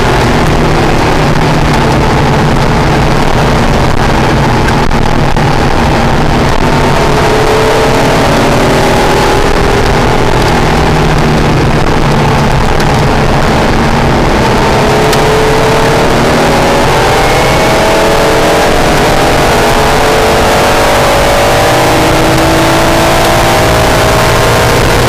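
Acura NSX's mid-mounted V6 engine at speed on track, heard from inside the cabin, its pitch rising and falling as the car accelerates and lifts through corners, over steady road and wind noise.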